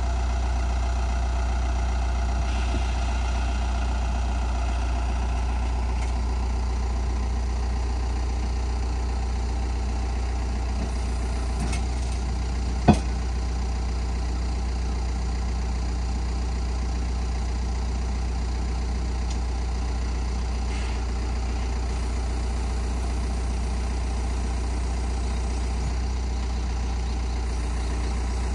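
Diesel engine of a dual-mode vehicle (a minibus that runs on both road and rail) idling steadily, with one sharp knock about halfway through.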